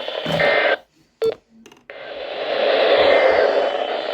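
Radio receiver static hiss carrying faint data tones. It cuts out just under a second in, a short beep sounds, and the static returns about two seconds in.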